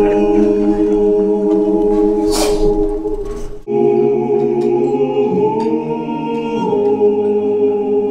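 Music of sustained, choir-like vocal chords, broken off briefly about three and a half seconds in before the held chords resume.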